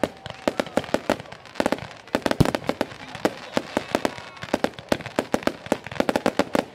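Fireworks display: rapid volleys of sharp bangs and crackles from bursting aerial shells and rockets, several a second, with one deeper, louder boom about two and a half seconds in.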